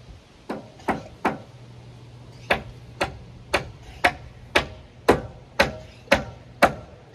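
Hammer striking nails into timber: three blows, then a steady run of about two blows a second, each a sharp crack with a short ring.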